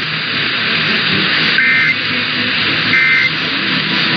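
Emergency Alert System end-of-message data bursts, the signal that closes the test: short two-tone digital chirps about 1.3 seconds apart, two of them and a third starting at the very end. They sit over a loud, steady radio hiss.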